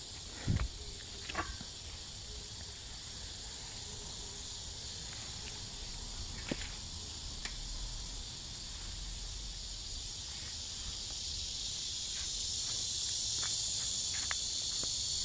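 Steady high-pitched chorus of insects, growing louder in the second half. A soft low thump about half a second in, with a few faint clicks after it.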